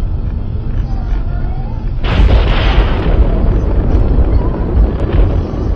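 Thunder: a sudden sharp crack about two seconds in that fades over a second or so, over a continuous deep rumble.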